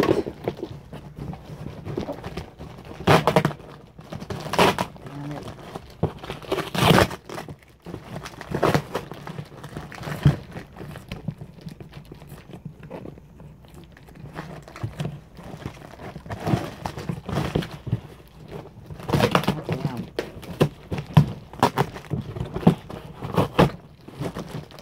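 Plastic and cardboard packaging being handled and opened: irregular crinkling and rustling with scattered knocks.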